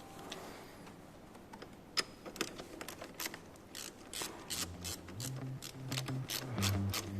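Ratchet wrench clicking in a quick, even run of about four clicks a second as a bolt is turned during a car battery replacement.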